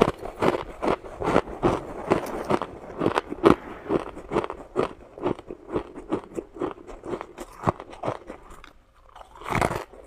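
Shaved ice being bitten and chewed, a quick run of crisp crunches about three or four a second. They pause briefly near the end, then come back with a loud crunch.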